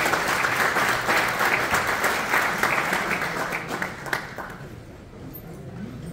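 Audience applauding. The clapping thins and dies away after about four seconds.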